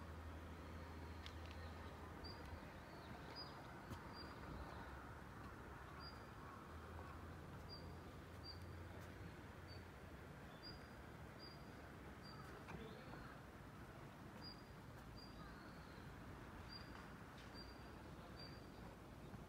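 Near silence: faint outdoor ambience with short, high chirps repeating irregularly, about once a second.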